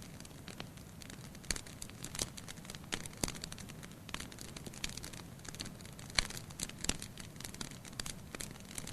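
Wood fire crackling in a fireplace: irregular sharp pops and snaps of burning firewood over a soft steady hiss, the sharpest pop a little past the middle.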